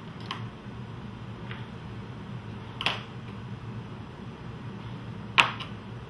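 Three sharp clicks, about two and a half seconds apart with the last the loudest, from steel dissecting tools and small plastic cryovials handled over a specimen tray.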